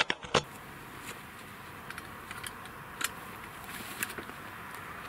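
FAC-rated .25 air rifle firing a shot: two sharp cracks under half a second apart at the start. Faint scattered clicks and rustles of handling follow.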